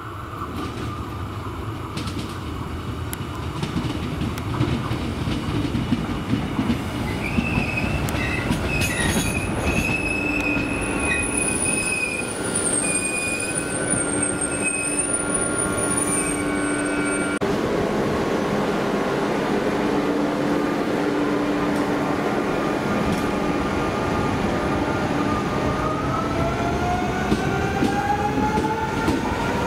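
A CP Lisboa Sorefame stainless-steel electric multiple unit runs into the platform over the rails, with high squealing from wheels and brakes as it slows between about 7 and 17 seconds in. From about 24 seconds in, a rising whine from the traction motors as it pulls away.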